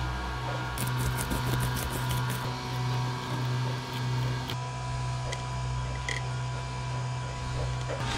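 A fillet knife cuts along a walleye, making a quick run of crunching, scraping clicks about a second in, then scattered ticks. A steady low hum runs underneath.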